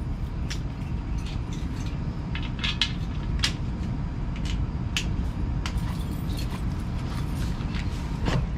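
A padlock being fastened on a bicycle: scattered small metal clicks and clinks, over a steady low rumble.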